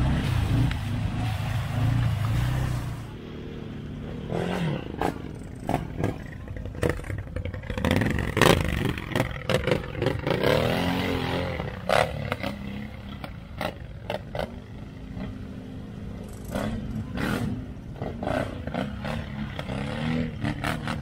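Quad bike (ATV) engine revving in bursts, its pitch climbing and dropping again and again, with scattered sharp knocks and clatters.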